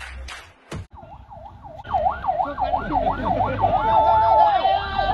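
Vehicle sirens wailing in fast rising-and-falling sweeps, starting about a second in and growing louder, with more sirens overlapping and one holding a steady note near the end. A few beats of music end in the first second.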